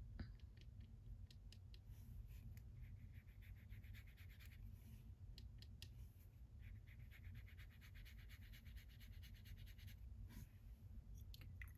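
Faint scratchy strokes of a watercolor brush laying paint across textured watercolor paper, in two spells a few seconds long, with a few small clicks.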